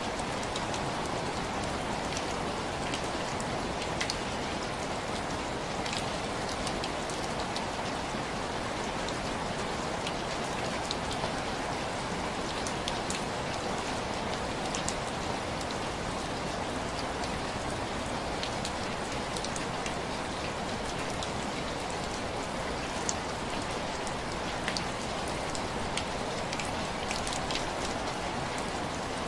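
Heavy rain falling in a steady, dense hiss, with scattered small sharp ticks throughout.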